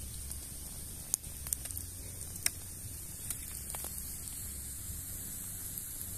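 Open wood fire crackling, with a few sharp pops about one and two and a half seconds in, over a steady high hiss.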